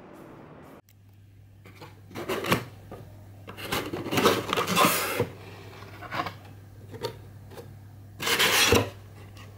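Corrugated cardboard box being handled and opened by hand: its flaps rub and scrape in several rasping bursts, the longest from about three and a half to five seconds in and a last short one near the end.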